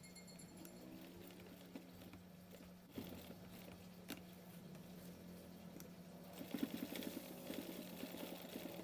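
Faint steady hum with a couple of single clicks, then, about two-thirds of the way in, a sewing machine starts stitching: a rapid run of needle ticks.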